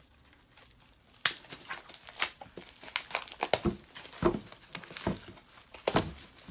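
Plastic shrink-wrap crinkling and tearing as it is pulled off a stack of cardboard flashcards, in a run of sharp crackles starting about a second in, with a few dull bumps of handling.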